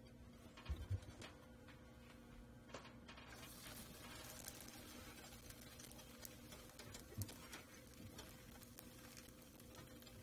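Faint ticking and crackling from a flour tortilla heating on a dry cast-iron griddle, over a steady low hum. There are a couple of soft low knocks about a second in, and the crackle sets in after about three seconds.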